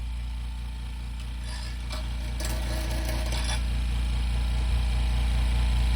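Air compressor motor running with a steady, fast pulsing hum that grows gradually louder, and a few short hisses of air between about one and a half and three and a half seconds in.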